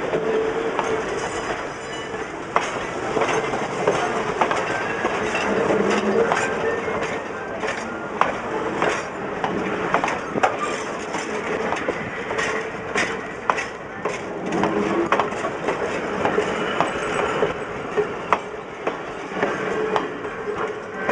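Steel passenger coaches rolling past close by, their wheels rumbling on the rail with a run of sharp, irregular clicks and knocks as the trucks cross rail joints.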